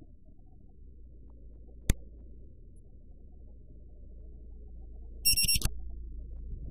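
Action camera beeping: a quick burst of high electronic beeps about five seconds in. A single sharp click comes near two seconds in, and a low rumble of wind and handling runs underneath.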